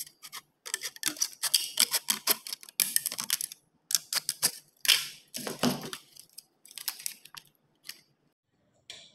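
Scissors snipping through thin aluminum soda-can sheet, a quick irregular run of sharp clicks and crinkles as the metal is cut and handled.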